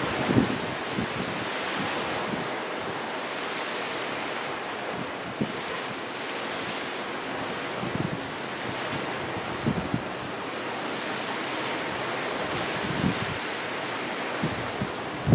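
Wind blowing across the microphone on a ship's open deck: a steady rush, with a few short low buffeting thumps from gusts, over the wash of the sea below.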